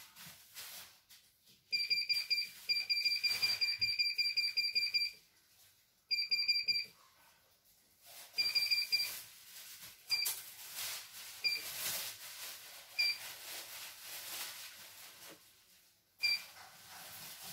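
CNY E900 computerized embroidery machine's control panel beeping at each button press: long quick runs of short high beeps a couple of seconds in, then shorter runs and single beeps a second or more apart.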